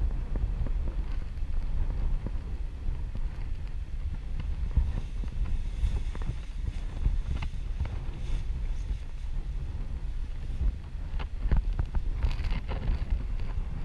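Wind buffeting the microphone on an open cliff top: a steady low rumble, with a few short knocks and rustles near the end.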